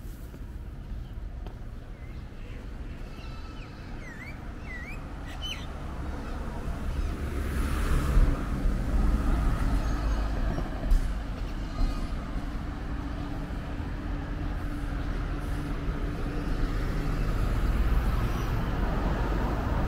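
Road traffic: a motor vehicle's engine rumble builds about six seconds in and stays loud, with a few bird chirps before it.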